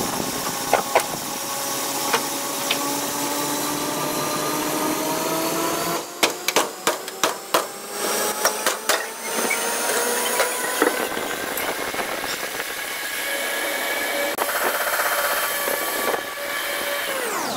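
Crumpled steel body panel clanking in a quick series of sharp knocks as the crushed rear quarter panel of a Hyundai Sonata is wrenched and torn away by hand, over a steady whine that slowly rises in pitch and drops away suddenly near the end.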